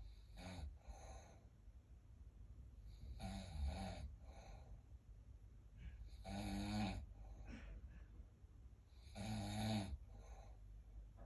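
Snoring in slow, even cycles: four snores about three seconds apart, each followed by a fainter breath.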